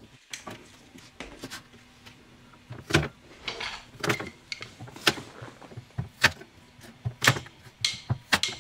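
Chef's knife knocking against a plastic cutting board in irregular strokes, roughly one a second, with softer scraping and shuffling of garlic cloves and chillies on the board between them.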